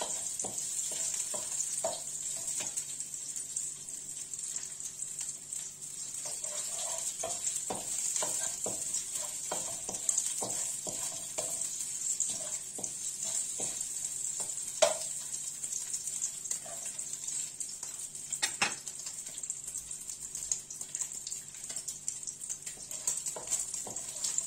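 Sheep's tail fat sizzling as it renders in a hot pan on a gas burner, stirred with a wooden spoon that knocks and scrapes against the pan. Two sharper knocks come past the middle.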